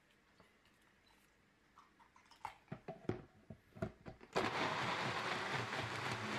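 Sencor personal blender: a string of knocks and clicks as the cup is fitted onto the motor base, then a little over four seconds in the motor starts and runs steadily, blending a kefir protein shake.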